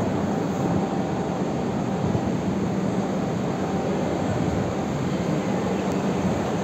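Steady roar of ventilation and air-conditioning fans, with a low, even hum underneath.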